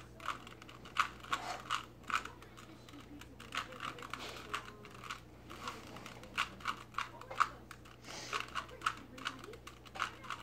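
A Rubik's Cube's plastic layers being turned quickly by hand: an irregular run of sharp clicks and clacks, a few a second.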